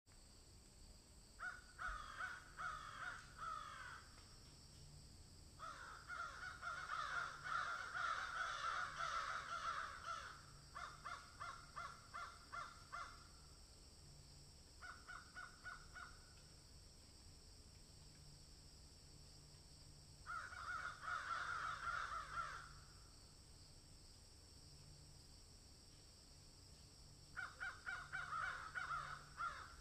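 Harsh bird cawing in bouts of quick repeated notes, five bouts with pauses between them, the longest lasting several seconds, over a faint steady hum.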